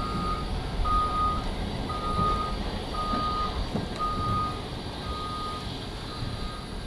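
Reverse alarm on a rough-terrain forklift beeping about once a second, a single steady tone, over a low rumble. The beeps grow a little fainter in the second half.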